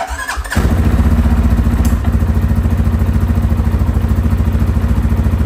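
2023 CFMOTO CForce 600's single-cylinder engine cranked on the electric starter, catching about half a second in, then idling steadily at about 1600 rpm.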